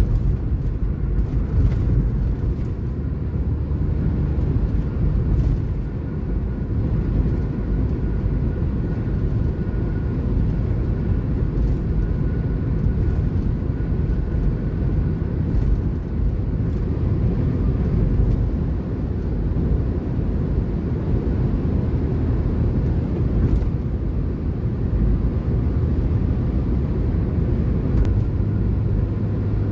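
Steady road noise heard from inside a moving car: tyres running on a concrete road surface along with the engine, a constant low rumble.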